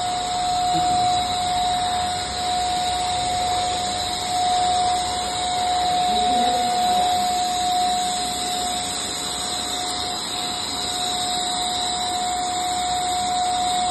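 Stainless-steel canister wet/dry vacuum cleaner running steadily: a constant whine over a rush of air.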